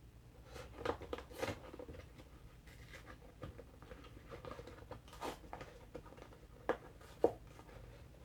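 Handling noises from a plastic drink bottle: scattered rustling and scraping with short clicks, and two sharp clicks near the end.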